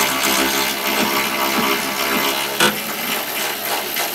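Cordless power tool motor running steadily as a bolt is run out, with one sharp click about two and a half seconds in.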